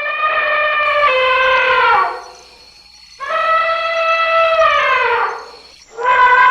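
Elephant trumpeting: three long calls, each held on one pitch and then falling away as it ends. The first is already sounding at the start, the second begins about three seconds in, and the third about six seconds in.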